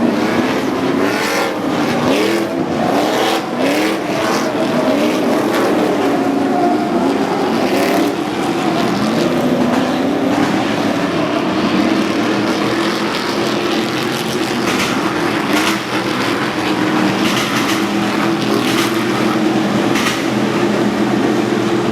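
Stadium Super Trucks' V8 engines revving up and dropping back again and again as trucks pass one after another, their pitch rising and falling; from about halfway the engine note holds steadier.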